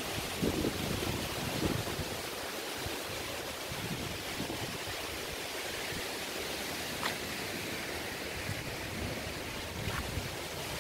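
Steady rushing outdoor noise of wind on the microphone, with low buffeting gusts in the first two seconds and a couple of faint ticks later on.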